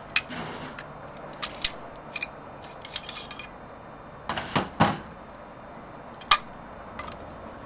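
Metal clicks and clacks of a Robinson Armament XCR rifle being taken apart by hand, as parts are unlatched, slid and snapped free. The clicks come singly and irregularly, with the loudest, a quick pair of knocks, about halfway through.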